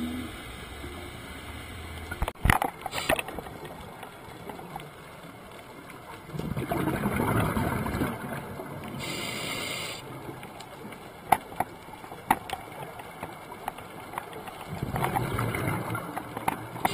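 Scuba diver breathing through a regulator, heard underwater: two rumbling bursts of bubbling exhaled air, about six seconds in and near the end, with a short hiss between them, plus a few sharp clicks.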